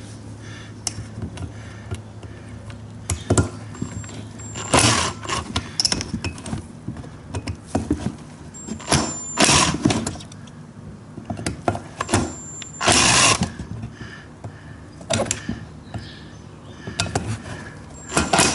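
Hand work on an ATV carburetor: scattered clicks and knocks of small metal parts, with about five short noisy bursts, over a steady low hum.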